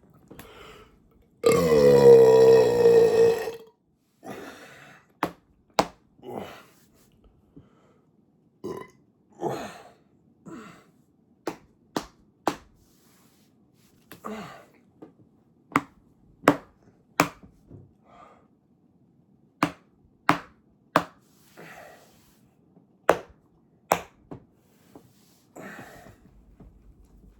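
A man's long, loud, deep belch near the start. It is followed by a string of short sharp clicks, mostly in runs of three about half a second apart, with softer breathy sounds between them.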